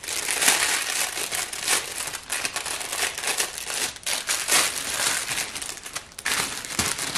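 Clear plastic wrapping crinkling and rustling in quick, irregular bursts as a rolled diamond painting kit is handled and unwrapped by hand.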